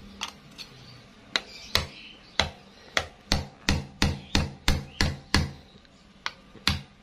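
Claw hammer tapping the glued plastic case of a phone charger: a run of sharp light knocks, a dozen or so, quickening to about three a second. The blows crack the glued seam of the case so it can be opened.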